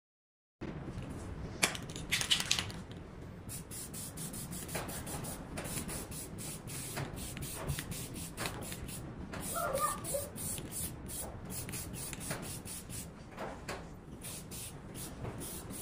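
Aerosol spray can spraying onto plywood in a long series of short hissing bursts.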